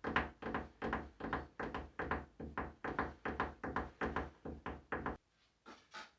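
A quick, even series of knocks, about three a second, that stops about five seconds in, followed by two fainter knocks near the end.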